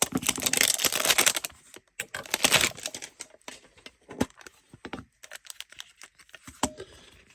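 Crinkling and rustling of plastic wrap with a run of small clicks and taps as a Pokémon card mini tin is unwrapped and opened by hand. It is loudest in two bursts, at the start and about two seconds in, then thins to scattered clicks.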